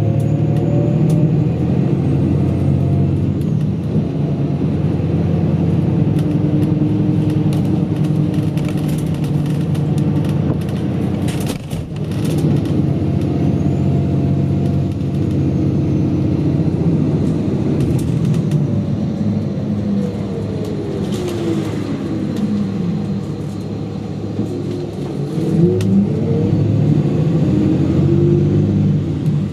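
Bus engine and drivetrain heard from inside the cabin on the move, its pitch falling as the bus slows and rising again as it picks up speed, with a few knocks near the middle.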